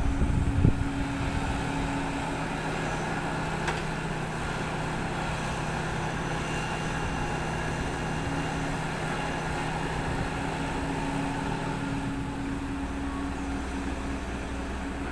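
An engine running steadily, with an even low hum and a couple of constant tones and no change in speed.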